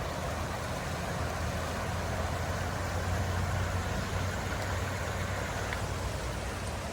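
A vehicle engine running steadily, giving a low, even hum.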